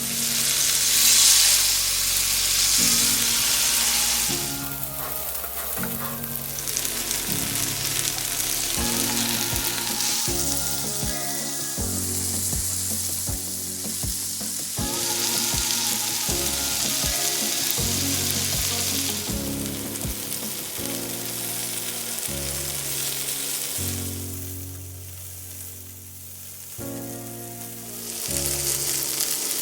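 Marinated chicken malai tikka frying in a pan, a steady sizzle that swells louder about a second in and again near the end.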